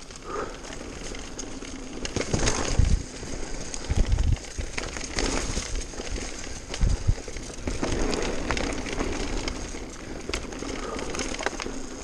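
Mountain bike riding fast down a dirt trail covered in dry leaves: tyres crackling over leaves and twigs, the bike rattling, with heavy thumps over bumps about two and a half, four and seven seconds in.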